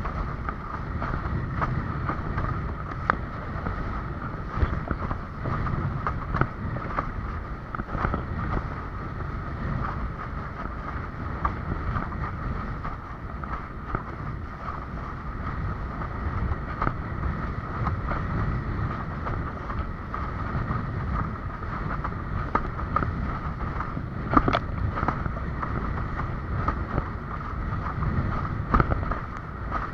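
Windsurf board sailing: wind buffeting the microphone and water rushing past, with a steady high hum and a few sharp slaps or knocks at uneven intervals.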